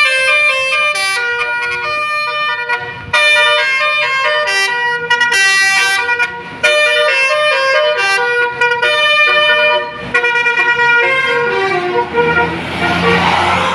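Indonesian 'telolet' bus horn playing a fast tune of short, chord-like toots that change pitch every fraction of a second. Near the end the notes give way to a rushing hiss over a low rumble.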